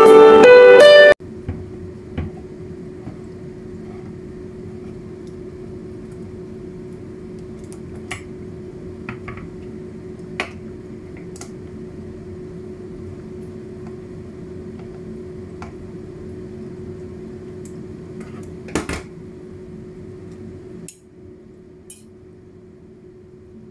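Guitar music cuts off about a second in. After that, a hand-held can opener works around the rim of a small tin can, giving scattered metallic clicks and knocks over a steady low hum, with the sharpest knock near the end as the lid comes free.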